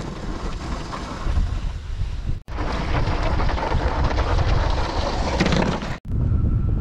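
Strong blizzard wind buffeting the microphone: a steady rushing noise with a heavy low rumble. It breaks off for an instant twice, about two and a half seconds in and again about six seconds in.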